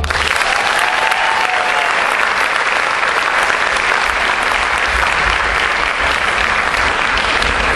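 Audience applauding steadily after the music stops.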